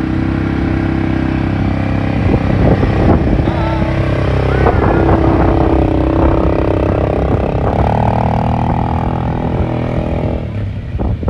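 ATV engine idling, then revving up as the quad pulls away across sand. The pitch rises in steps and eases off near the end as it moves off.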